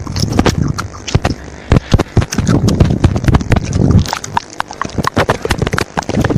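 Rapid, irregular clicks and knocks with low thuds: fingers tapping on a tablet's touchscreen and handling the device close to its built-in microphone.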